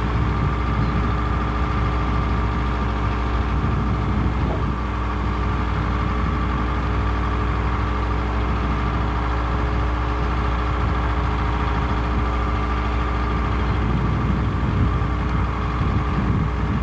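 An engine idling steadily, a low, even drone.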